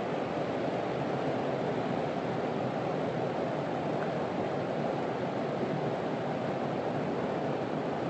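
Steady, even rushing noise with no distinct events.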